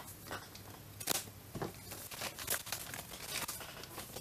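Plastic parts bag crinkling and rustling as it is handled, with a few short, sharp crackles.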